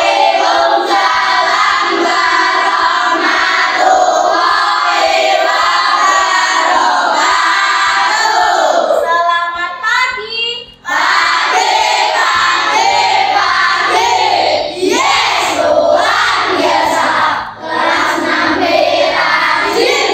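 A class of young schoolchildren singing together in chorus, with a short break a little past halfway before the singing goes on.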